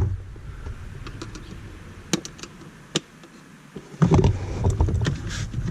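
Sharp plastic clicks and handling noise as wiring harness connectors are worked loose from a car's body control module: a few separate clicks about two and three seconds in, then louder rustling and knocking from about four seconds in.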